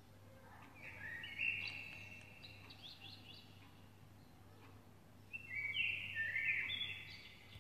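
Small birds chirping in two bouts of quick high notes, the first starting about a second in, the second around five seconds in.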